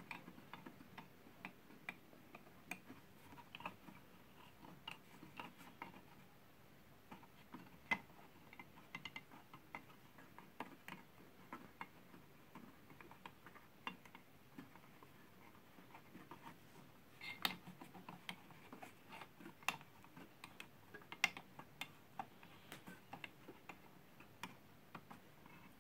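Faint, irregular small clicks and ticks of fingers turning the mounting nuts of an EK-Supremacy EVO CPU water block down onto its mounting screws. A few sharper clicks come about two-thirds of the way through.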